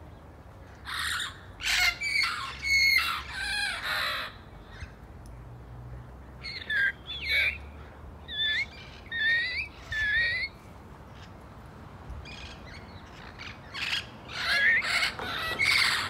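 Wild parrots squawking in three bouts of loud calls with short pauses between; the calls in the middle bout swoop up and down in pitch.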